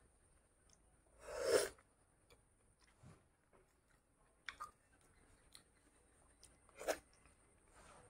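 Close-miked mouth sounds of a person eating soft, ripe mango flesh: chewing and wet mouth noises. One longer, louder noise comes about a second and a half in and a short sharp one near the end.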